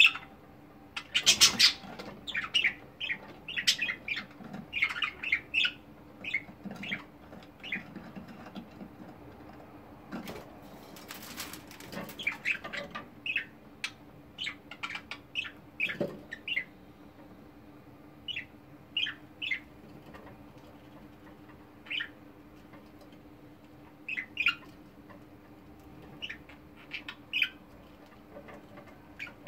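Pet budgerigars chirping and chattering in quick short bursts, with flurries of wing flapping about a second and a half in and again around eleven seconds. In the second half the chatter thins to scattered single chirps over a faint steady hum.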